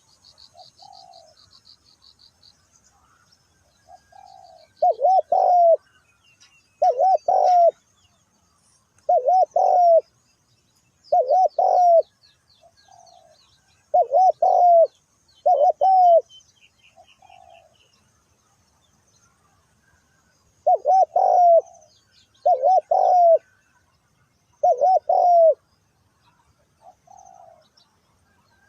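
Spotted dove cooing: a run of loud, low, rounded coo phrases repeated every two seconds or so, with a pause about two-thirds of the way through before it resumes. Small birds chirp faintly in the background.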